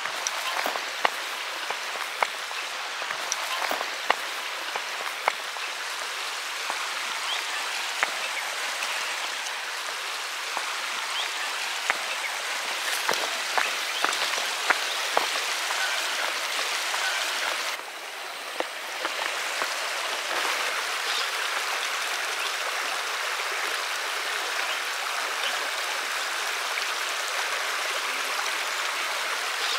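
A shallow river running over rocks, a steady rushing hiss, with footsteps crunching on a dry dirt path about once a second through the first half.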